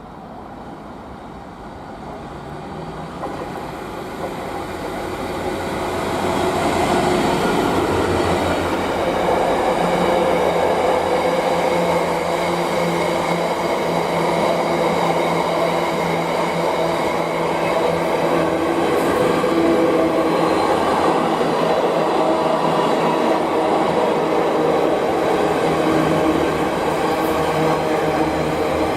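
A non-stopping freight train passing through the station at speed, growing louder over the first six or seven seconds, then a long, steady rail noise as the train runs past.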